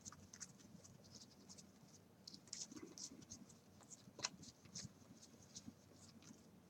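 Faint scraping and flicking of trading cards being slid and flipped through by hand, with a sharper click about four seconds in.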